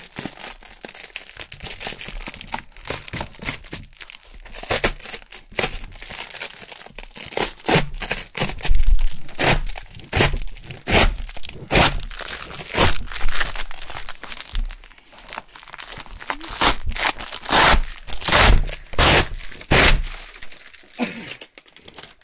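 A large sheet of Velcro hook fabric is ripped off a loop-fabric board in a long series of crackling tearing pulls, soft at first and then loud from a few seconds in, stopping shortly before the end.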